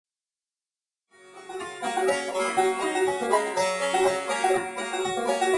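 Silence for about a second, then intro music fades in: a quick, busy run of notes that carries on at a steady level.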